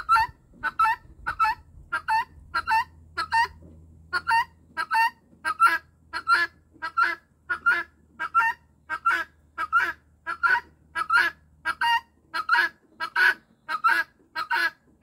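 Helmeted guineafowl calling over and over, short loud calls coming about two a second in an even rhythm.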